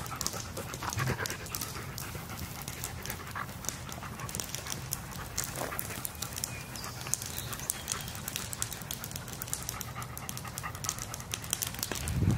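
German shepherds panting, with a couple of short puppy vocal sounds about one second and six seconds in.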